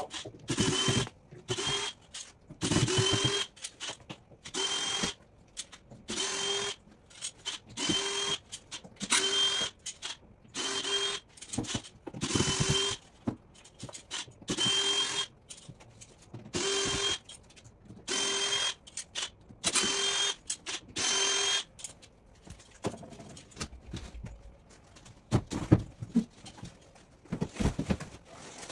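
Cordless drill-driver running in short bursts about once a second, backing screws out of a plywood shipping crate. The bursts stop about two-thirds of the way through, followed by a few knocks.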